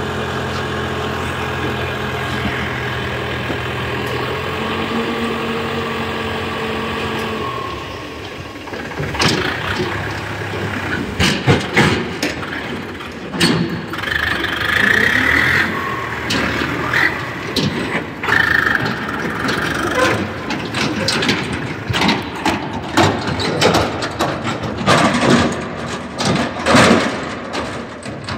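Mahindra 595 tractor's diesel engine running steadily while the hydraulic tipper trailer is raised to dump soil. About seven seconds in, the steady engine note drops away, followed by irregular clanking and rattling from the tipper trailer and tractor as the emptied rig moves off.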